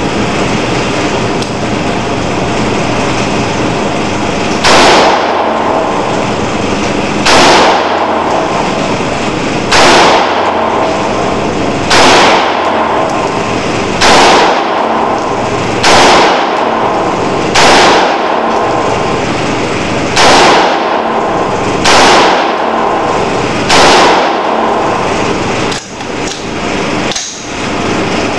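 AR-15 rifle chambered in 5.45×39mm firing ten single offhand shots, one roughly every two seconds, each shot echoing briefly in an indoor range. A steady loud noise runs underneath, and a couple of small clicks come near the end.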